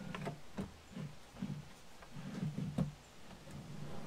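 Scattered light clicks and knocks from a plywood shelf on metal ball-bearing drawer slides as it is handled and pushed into a cabinet opening, with a few dull low thuds.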